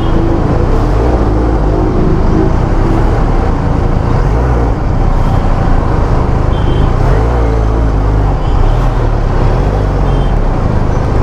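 Benelli TRK 502's parallel-twin engine running at low speed in heavy traffic, a steady low rumble mixed with the noise of surrounding vehicles. A few faint short beeps sound, such as horns.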